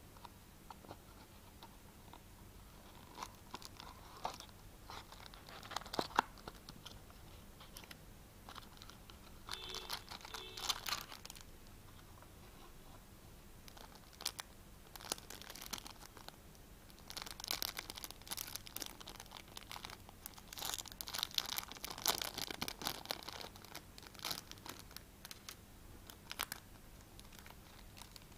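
Packaging handled and unwrapped by hand: a small cardboard box and a clear plastic bag crinkling and tearing open, in scattered bursts with quiet gaps and a few clicks.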